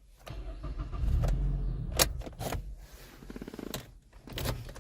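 Handling noises in a car: a low rumble, then several sharp clicks and knocks, about two seconds in and again near the end, as the key and driver door are worked.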